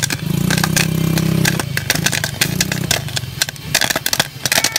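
Popcorn popping in a lidded camping cook pot: many quick, sharp pops, with the popped corn filling the pot up to the lid. A steady low engine-like hum runs under the pops for the first three seconds, then stops.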